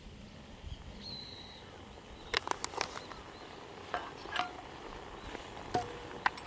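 Light clinks and taps of metal camping cookware being handled, about half a dozen sharp knocks from a couple of seconds in, some with a brief metallic ring.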